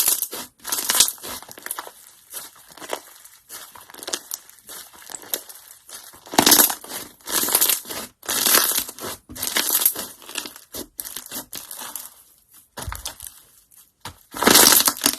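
Slime being squeezed and pressed by hand, giving a run of irregular crackling bursts with short gaps between them.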